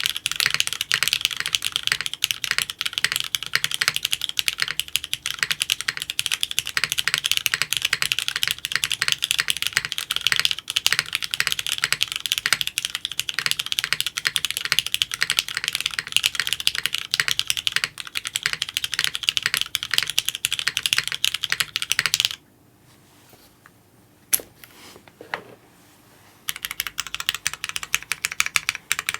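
Fast, continuous typing on a Geonworks F2-60 mechanical keyboard with lubed Cherry MX Hyperglide Black linear switches in an aluminium plate. The typing stops about three quarters of the way through, leaving a few seconds with only two or three single keystrokes, then resumes near the end.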